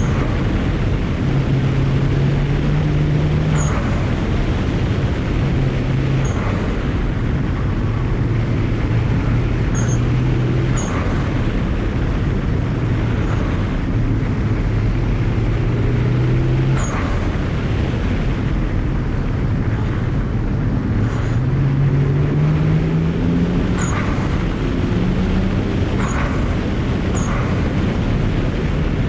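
BMW 335i's twin-turbo N54 inline-six pulling through the revs and backing off, its engine note rising and falling. The HKS blow-off valve vents with a short, sharp sound about nine times as the throttle closes.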